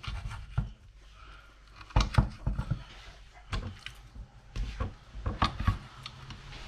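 Garfish fillets being handled and cut into sections with a kitchen knife on a glass chopping board: irregular knocks and taps of the blade and hands on the glass.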